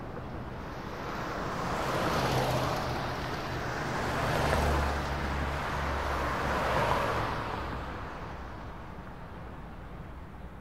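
Road traffic: vehicles passing, the noise swelling and fading about three times, with a low engine hum under the loudest middle stretch.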